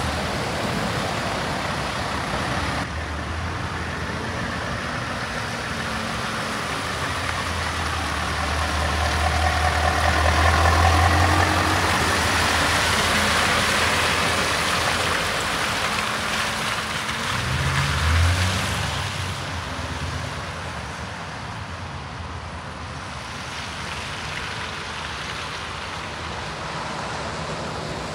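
Scania R530's V8 diesel engine idling with a steady low rumble, louder in the middle and with a short swell about eighteen seconds in, quieter towards the end.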